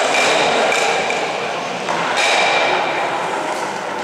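Stocks (Eisstöcke) sliding across the hard playing surface: a loud, steady gliding rush with a faint whistle, a fresh slide starting about two seconds in.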